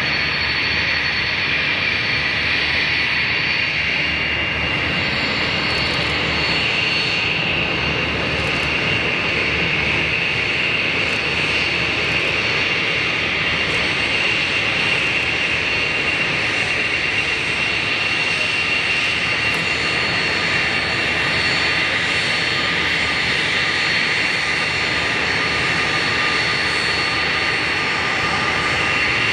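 BAe 146-300 airliner's four Lycoming ALF502 turbofans running at taxi power as the jet taxis: a steady high-pitched whine over an even rushing jet noise.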